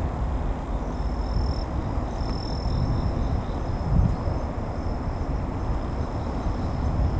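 Outdoor ambience: an uneven low rumble with a steady high insect trill, likely crickets, that starts about a second in.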